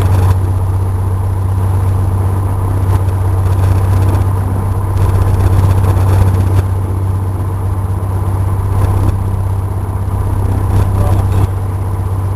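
Cessna 172's piston engine and propeller droning steadily at constant power, heard inside the cabin as a loud, even low hum.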